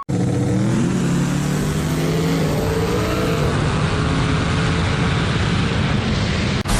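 Car engine accelerating, its pitch rising over the first couple of seconds and then holding steady under load.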